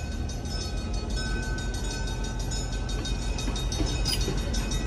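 Santa Cruz beach train rolling slowly past at close range: a steady low rumble that grows slightly louder, with faint steady high tones over it and one sharp click about four seconds in.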